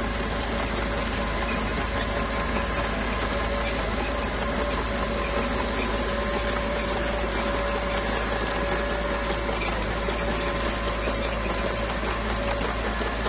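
Small bulldozer's diesel engine running steadily, with a constant low rumble and a steady whine over it.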